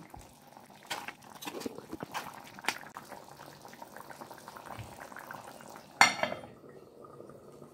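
Curry chicken bubbling at a simmer in a large aluminium pot, with a metal spoon clinking against the pot a few times. About six seconds in, a metal pot lid clanks loudly against the pot and rings briefly.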